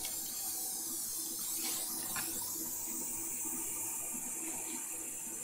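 Steady rushing background noise with a low hum underneath.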